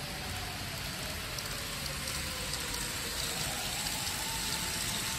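N-scale model trains running on layout track: a steady rolling hiss of wheels on rail, with a faint motor whine that rises about three seconds in and light clicking.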